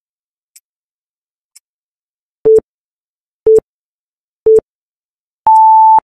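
Countdown timer sound effect: faint clock ticks once a second, then three short beeps a second apart and a final longer, higher beep as the timer hits zero.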